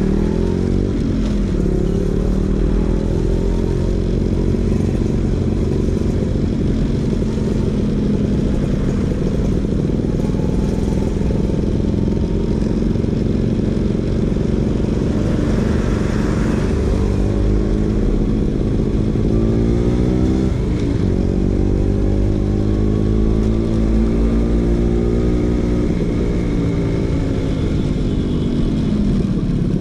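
Vespa PX 150's single-cylinder two-stroke engine running through a DRC Victory racing exhaust, its revs climbing and falling, with a few sudden drops in pitch.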